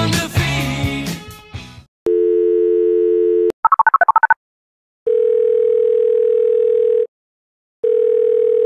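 Background music fades out, then a telephone dial tone holds for about a second and a half. A quick run of keypad dialing tones follows, then two long ringing tones sound on the line as the call rings through.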